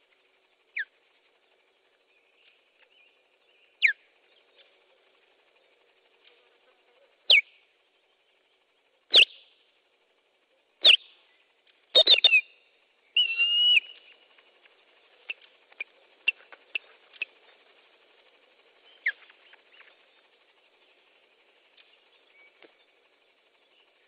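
Osprey giving sharp whistled alarm calls that slide down in pitch. They come singly every two to three seconds and grow louder, then a quick run of calls comes about twelve seconds in, followed by scattered softer calls. This is the alarm given at an intruder near the nest.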